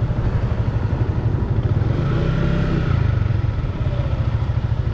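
Yamaha Sniper 150's single-cylinder four-stroke engine running while riding, with heavy wind rumble on the microphone; the engine pitch rises and eases off a little about halfway through.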